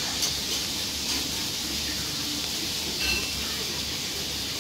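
Restaurant room sound: a steady hiss with a few light clicks, and a brief clink of tableware about three seconds in.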